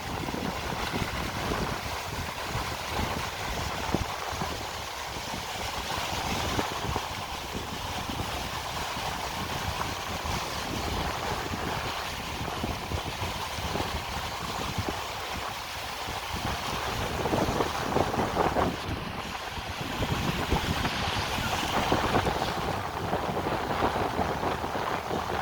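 Sea waves washing under wind buffeting the microphone, a steady rush of noise that swells louder in the last several seconds.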